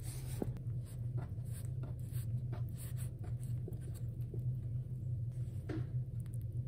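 Hands rolling and twisting bread dough on a floured wooden board: soft, irregular rubbing and brushing sounds over a steady low hum.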